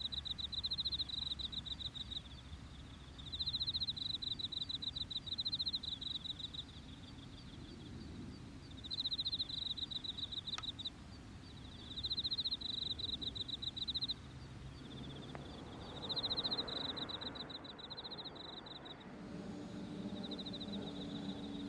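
Repeated bursts of rapid, high-pitched pulsing chirps, each a second or two long, over a low outdoor rumble, like insects chirping. Near the end a steady low hum with held tones comes in.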